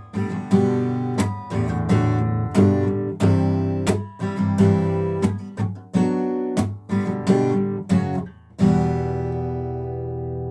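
Acoustic guitar strumming a chord progression in sharp strokes, about one every half to two-thirds of a second. About eight and a half seconds in, the last chord is left to ring out.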